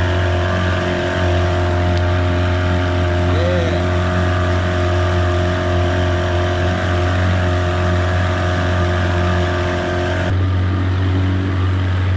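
Outboard motor running at speed, pushing a fishing boat along the river. The engine note is loud and steady, and it changes about ten seconds in.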